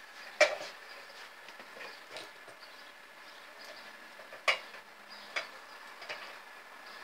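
Metal parts of an Arrarex Caravel lever espresso machine clinking as the piston is fitted back into the water tank by hand. There is a sharp clink about half a second in, another about four and a half seconds in, and a few lighter taps.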